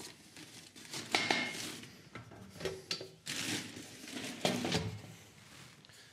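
Handling noises: several short bursts of rustling and crinkling, with a few light metallic clinks, as containers of powdered chemicals are handled.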